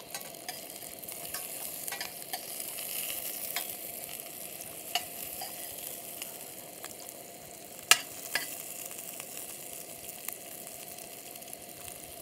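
Focaccia slices, onions and herbs frying in butter and olive oil in a stainless steel pan, a steady sizzle. A metal spoon clinks against the pan now and then as the fat is spooned over the bread, the loudest click about eight seconds in.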